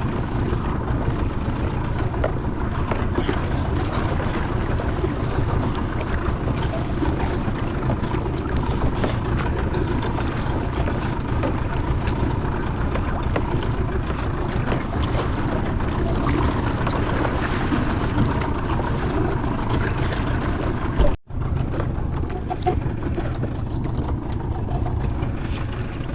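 Steady rumble of a small fishing boat at sea, with wind buffeting the microphone. The sound cuts out for an instant about three quarters of the way through.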